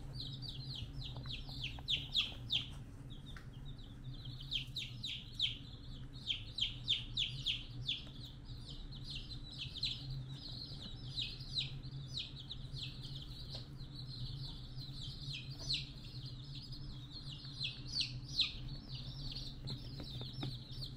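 Birds chirping in a rapid run of short, high, falling peeps, several a second with brief gaps, over a steady low hum.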